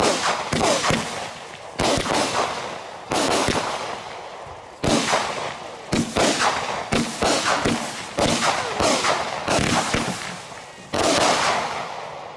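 Consumer multi-shot firework cake firing a string of about a dozen sharp reports at uneven gaps, each trailing off before the next. The last shot comes about a second before the end.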